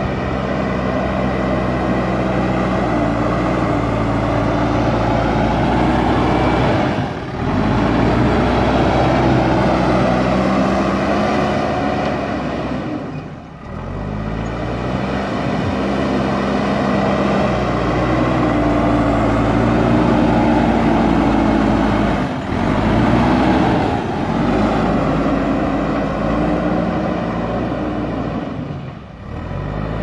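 JCB 3DX backhoe loader's diesel engine working hard as the front bucket pushes soil, its engine note rising and falling with the throttle. The engine eases off briefly four times, then picks up again.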